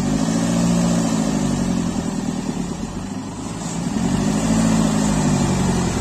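Heavy-equipment diesel engine working under load, revving up and easing back down twice, each surge lasting about two seconds.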